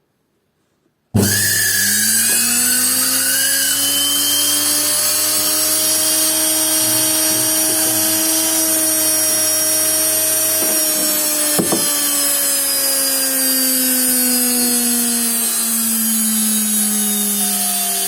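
Indesit washing machine's brushed universal motor, run directly off the mains with a jumper between one brush and one field winding. It starts abruptly about a second in and spins up with a rising whine, then runs at high speed with a steady whine and brush noise. Its pitch sags slowly in the second half, and there is one sharp click midway.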